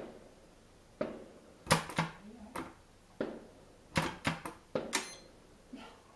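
A quick, irregular series of about a dozen sharp knocks and bangs, some with a short ringing tail, thickest between about two and five seconds in.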